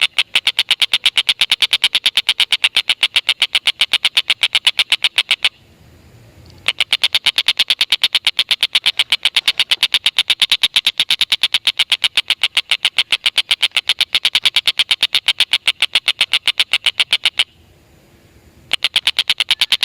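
Stork-billed kingfisher (tengkek buto) giving its long chattering 'ngekek' call: rapid sharp repeated notes, about seven a second, in long runs broken twice by pauses of about a second.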